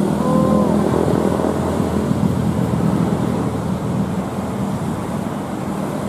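Roadside traffic: vehicle engines running close by, the noise slowly fading.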